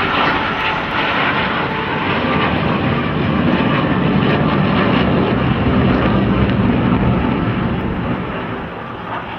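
Blue Angels F/A-18 Hornets flying overhead in close formation, their twin turbofan jet engines making loud, steady jet noise that swells towards the middle and eases near the end.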